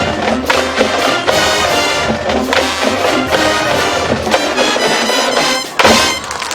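Marching band brass and percussion playing a driving rhythmic passage. After a brief break near the end it ends on one loud accented hit from the whole band.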